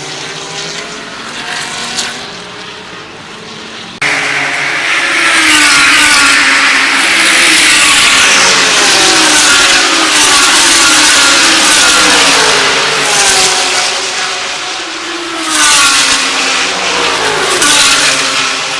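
GT3 race car engines at racing speed as several cars pass. Their pitch sweeps up and down through gear changes and drops as each car goes by. It gets much louder about four seconds in and peaks again near the end.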